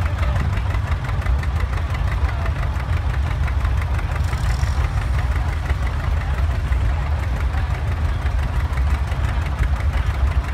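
Vintage two-cylinder John Deere tractor engine running steadily with a rapid, regular popping while it pulls a weighted sled.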